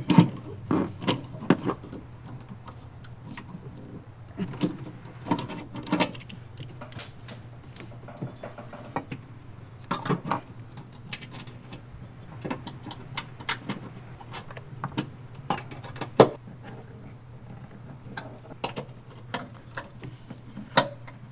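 Irregular metallic clicks and knocks of hand tools and fasteners at work while a switch-panel bracket is bolted on, over a steady low hum.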